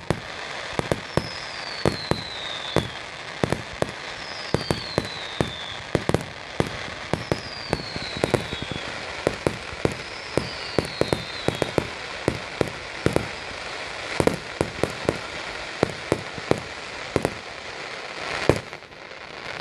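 Fireworks display: a long run of sharp bangs and pops, several a second at times, over a steady crackling background. Four falling whistles, about three seconds apart, sound through the first half.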